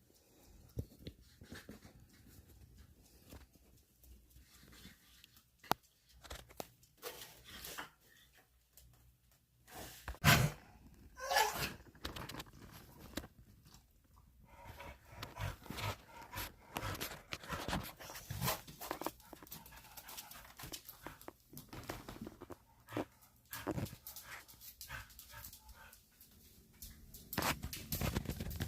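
A dog scratching, nibbling and licking at itself to relieve an itch, with sniffing and breathing between the quick irregular scratching and chewing noises. One loud sharp sound about ten seconds in. The noises grow busier from about fifteen seconds on.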